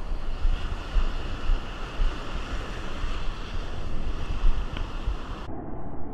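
Breaking surf washing and hissing around a wader, with wind buffeting the microphone in uneven low gusts. About five and a half seconds in the high end drops away suddenly and the sound turns dull and muffled.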